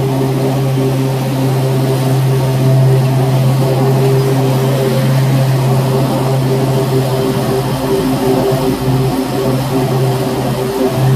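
Exmark Turf Tracer 48-inch walk-behind mower's engine running at a steady pitch under load, blades engaged while cutting grass.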